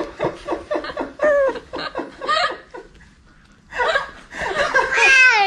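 Laughter in quick repeated bursts, a short pause, then a high-pitched voice sliding downward in pitch near the end.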